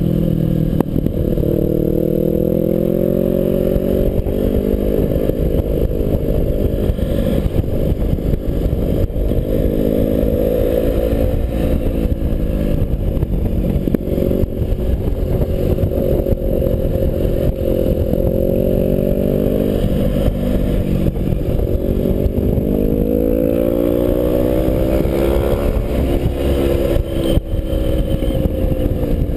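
BMW 650GS motorcycle engine under way, heard from on board, its revs rising and falling again and again as the throttle is opened and closed, over a steady low wind rumble.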